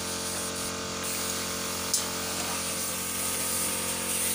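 Compressed-air paint spray gun hissing steadily as paint is sprayed, over a steady mechanical hum. A single sharp click about two seconds in.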